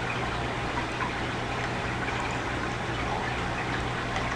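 Steady background hiss with a low constant hum from an open microphone.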